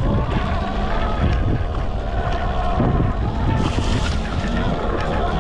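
Wind noise on the microphone of an Arctic Leopard electric e-bike ridden off road, with the bike's electric motor whining and its pitch wavering.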